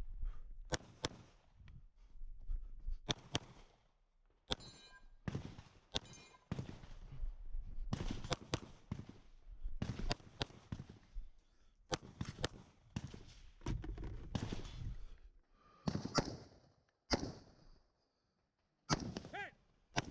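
Smith & Wesson M&P Pro Core pistol shots fired in rapid strings, often as quick pairs, in a competition stage. About two seconds before the end there is a second of silence, then more shots from a PSA AR-15 rifle.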